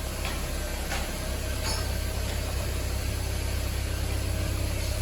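Ford Fiesta's Zetec RoCam engine idling steadily with the air-conditioning compressor off: a smooth, even idle, which the owner calls normal and "sereninho" (calm).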